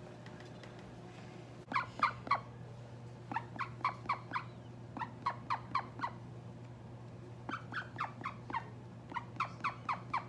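Female call duck quacking in quick runs of four to six short quacks, five runs in all with brief pauses between them.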